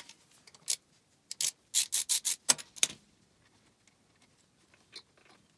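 A quick run of sharp clicks and light rattles, about a dozen in the first three seconds, then a few faint ticks: small parts and rubber fuel hoses being handled while working on a carburettor's fuel lines.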